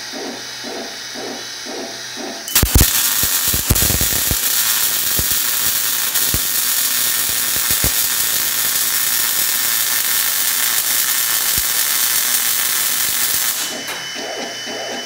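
A welding robot's torch arm moving into position with short, repeated mechanical whirs, about three a second. About two and a half seconds in, the welding arc strikes with a few crackles. It then runs as a loud, steady crackling hiss while laying the first pass of a multi-pass weld, and stops sharply about two seconds before the end.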